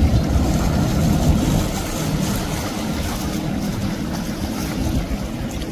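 Twin Mercury outboard motors running at speed, a steady rumble mixed with the rush of water from the boat's wake.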